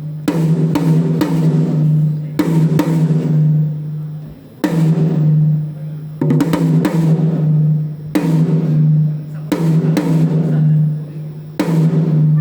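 A drum of a drum kit being struck during a sound check. It gets single hits and quick pairs every second or two, and each hit rings on at one steady low pitch.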